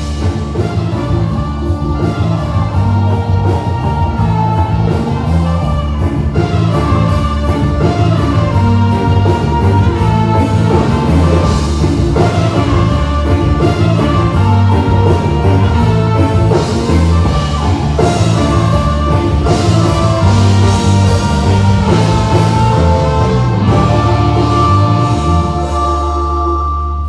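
A live band playing amplified through a PA system during a sound check: a mostly instrumental passage with a steady drum-kit beat, heavy bass and a melody line on top.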